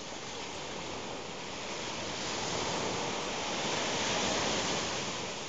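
Small sea waves breaking and washing up onto a sandy beach. The surf swells to its loudest about four seconds in, then eases off.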